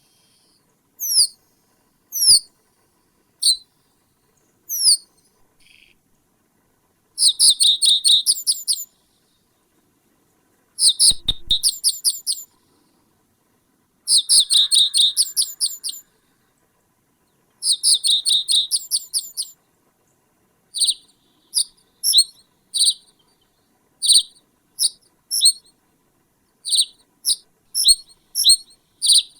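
A songbird calling: single sharp, high falling notes about a second apart, then four rapid trilled runs of about two seconds each, then quick paired notes.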